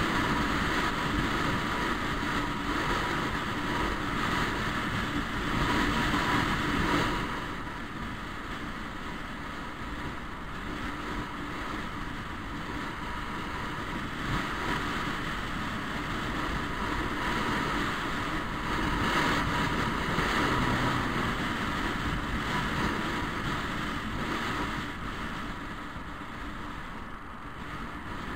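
Wind rushing over the microphone of a moving motor scooter, with the scooter's engine running steadily underneath; the rush is louder for about the first seven seconds, then eases off.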